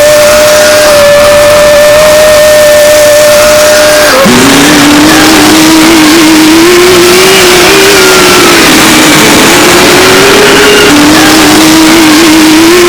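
A machine's motor running at a steady pitch, then dropping sharply about four seconds in and rising and falling in pitch as its speed changes.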